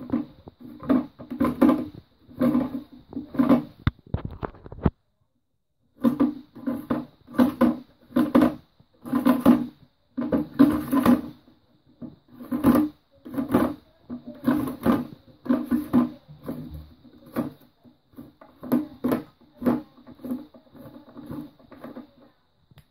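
Large plastic syphon base nut being turned by hand along the syphon's threaded plastic tail: a series of irregular short scraping, squeaking grinds, one or two a second, that stop for about a second some five seconds in.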